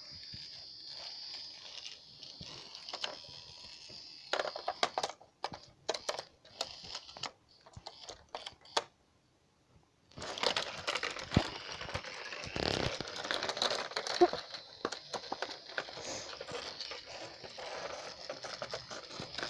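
Plastic clicks and rattles from a toy model train being handled. After a brief silence about ten seconds in, dense clattering sets in with a steady high whine, like the small motor of the battery-powered toy train running.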